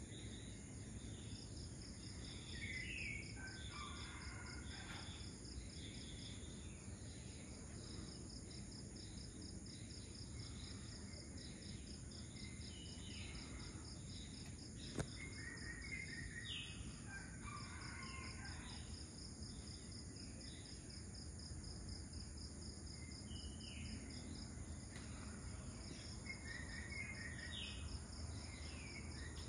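Dawn insect chorus: crickets or other insects trilling steadily at a high pitch with a fast pulse, while birds call in short sweeping phrases about four times. A single sharp click about halfway through.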